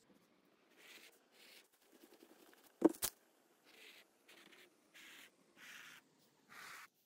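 A small metal hand tool scraping and brushing against the woven cloth of a car seat bolster in short repeated strokes, roughly one or two a second. A sharp double click, the loudest sound, comes about three seconds in.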